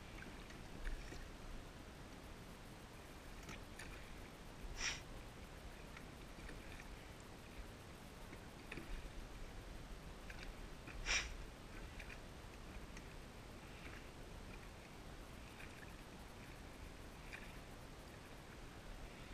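Faint sounds of a small oared boat moving through calm water: water lapping and light oar noises, with scattered small clicks and two brief sharper sounds, about five seconds in and about eleven seconds in.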